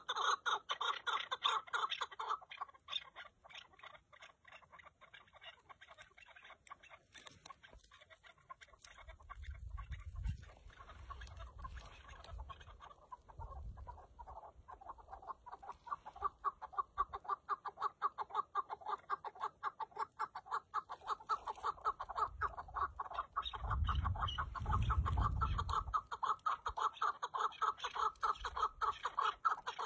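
Chukar partridges calling, a rapid run of repeated clucking chucks. The calls are loud at first, drop away for several seconds and build up again from about halfway through. There are low rumbles twice, around a third of the way in and again later.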